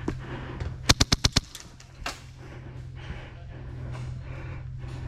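Airsoft gun fired in a quick burst of about six shots in half a second, a little under a second in, with a few scattered single shots after it. A steady low hum runs underneath.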